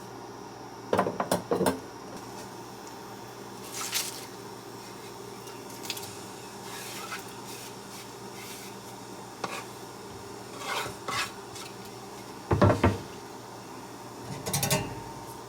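Dishes and utensils being handled: scattered clinks and knocks in about six short clusters, the loudest about three-quarters of the way through, over a steady low hum.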